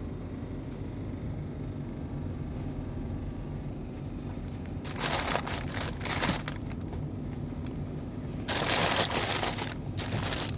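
Paper bag crinkling in a few bursts as bread rolls are packed into it by hand, loudest about two-thirds of the way through, over a steady low hum.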